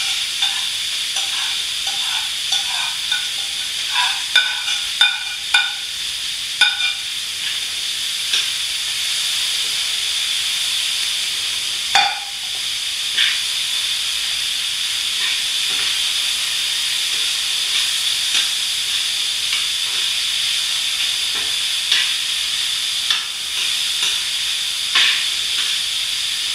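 Butter and minced garlic frying in a hot skillet with a steady sizzle. Over it a utensil clinks and taps against the pan, often during the first several seconds, with one sharper knock about halfway and scattered taps after.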